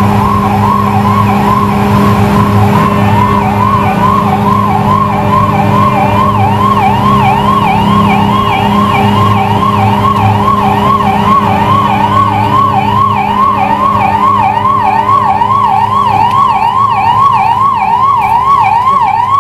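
Ambulance siren sounding in a fast repeating yelp, about two quick pitch sweeps a second, over a steady low hum.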